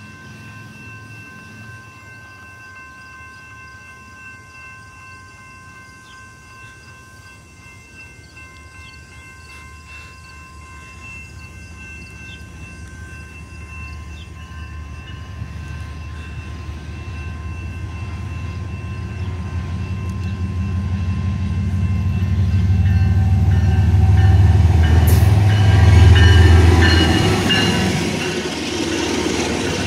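Canadian National GE ES44DC diesel locomotives approaching and passing, their engine rumble swelling over about fifteen seconds to a peak, then double-stack intermodal cars rolling by with rattling wheel-and-rail noise. Steady high ringing tones sound over the first two-thirds and fade as the train arrives.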